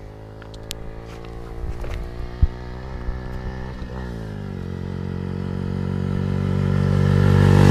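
Motorcycle engine running as the bike approaches along the road, its pitch dropping about four seconds in and then growing steadily louder as it nears. There is a single sharp knock about two and a half seconds in.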